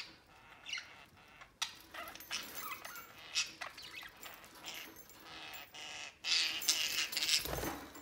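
Budgerigars chattering in short chirps and warbling calls. A louder rustling stretch with a low bump comes near the end.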